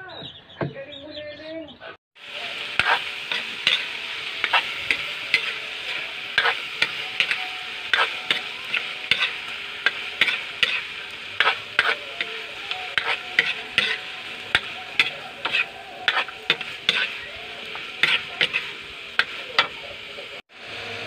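Chopped pork sizzling as it fries in a wok over a wood fire. A metal spatula stirs it, clicking and scraping against the wok many times at an irregular pace.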